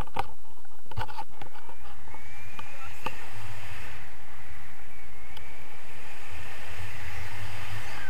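Wind rushing and buffeting over a handheld camera's microphone during a tandem paraglider flight, with a few clicks in the first second.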